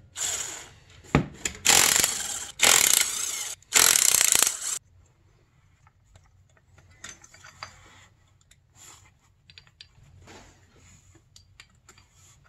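Cordless impact driver running in four short bursts as it runs in bolts on the power valve housing of a two-stroke snowmobile engine, stopping about five seconds in. After that, only faint clicks and rustles of hand work on the parts.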